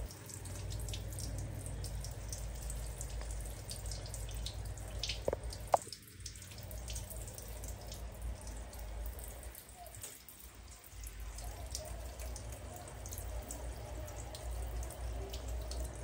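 Handheld shower head spraying water, with splashing and dripping onto a plastic stool and a tiled floor: a steady hiss of water dotted with small drips. There is a sharp click about six seconds in, and the water goes softer for a moment near the middle.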